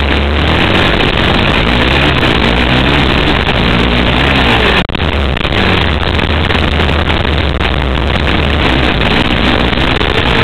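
Dirt bike engine revving, its pitch rising and falling continuously as the bike is ridden, with a brief drop in level just under five seconds in.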